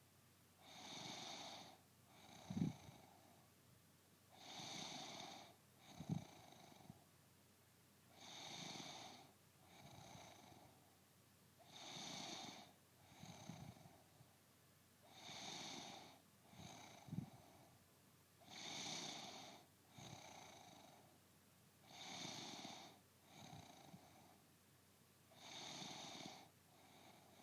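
A woman snoring in her sleep in a steady rhythm, about one breath every three and a half seconds: each cycle a longer, louder snore followed straight away by a shorter, softer one. Three times a brief sharp sound cuts in, the loudest moments of the stretch.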